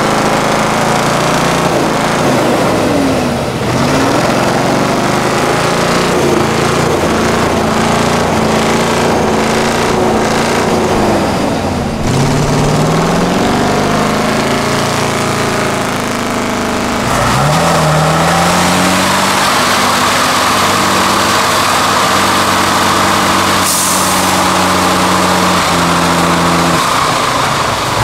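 Off-road trial truck's diesel engine working under load, its engine speed dropping away and climbing again several times. Over the last third a steady higher hiss runs alongside the engine.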